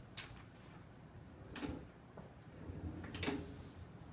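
A person sitting down at a classroom desk: three short knocks and scrapes of the desk and chair, the loudest a little over three seconds in.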